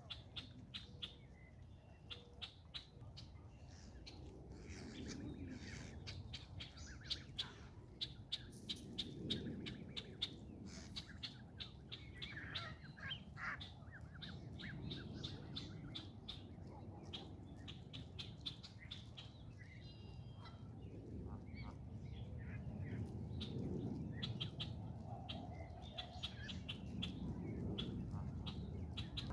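Red-winged blackbirds calling with many short, sharp chirps, repeated all through, over a low background rumble that swells and fades.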